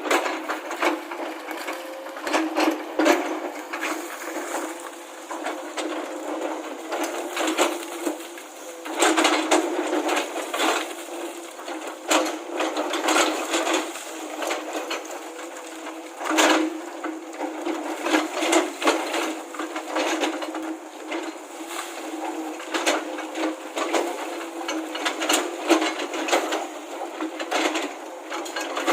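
Heavy vehicle's engine running steadily, with frequent clattering knocks and rattles throughout.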